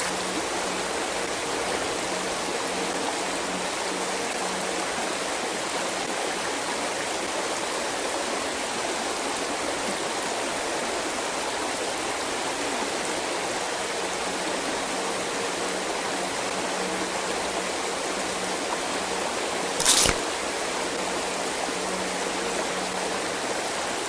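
Shallow creek running over rocks: a steady rush of rippling water. A single short sharp knock about twenty seconds in.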